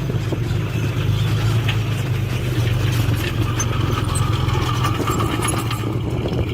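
Diesel engine of heavy earthmoving machinery running steadily with a low drone, with scattered clicks and rattles over it.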